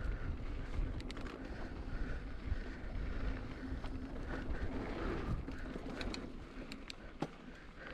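Mountain bike rolling fast down dry dirt singletrack: a steady low rumble of tyres and wind buffeting the microphone. A few sharp clicks and rattles from the bike come in the second half.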